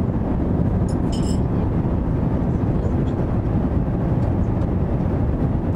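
Steady low rumble of an Airbus A350-1000 airliner cabin in flight: engine and airflow noise. A brief faint crackle comes about a second in.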